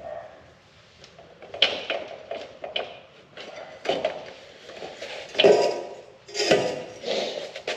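Metal hand tools and bike parts clanking and clattering as they are handled and set down, a series of irregular knocks with the loudest about five and a half seconds in.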